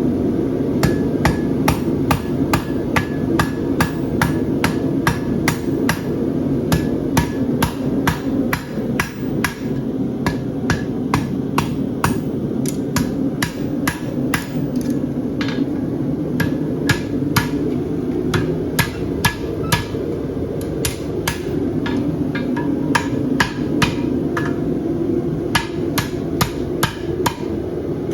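A farrier's hammer striking a hot steel horseshoe on an anvil in a steady rhythm of about two to three blows a second, many of them ringing briefly, as the shoe is shaped round and symmetrical. A steady low rumble runs underneath.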